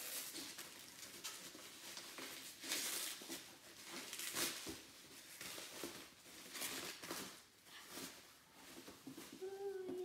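Cardboard toy boxes being handled and set in place on a table: irregular rustling, scraping and light knocks, with denser crinkling about three and four and a half seconds in.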